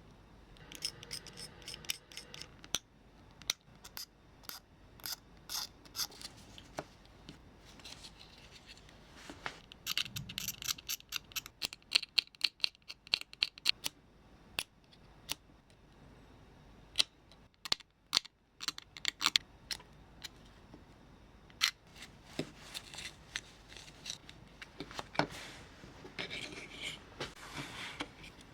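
Small hand tools and parts of a model locomotive being worked by hand: irregular sharp clicks and snips with short scratchy, scraping passages, busiest around the middle and again near the end.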